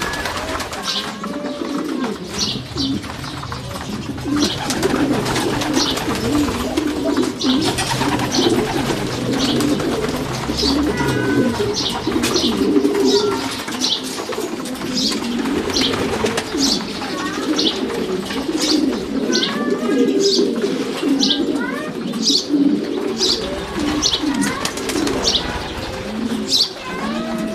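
A loft of racing pigeons cooing continuously in overlapping low, warbling coos. Short high chirps sound about once a second throughout.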